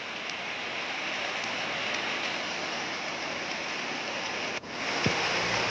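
Heavy rain pouring down with rushing floodwater, a steady, even hiss.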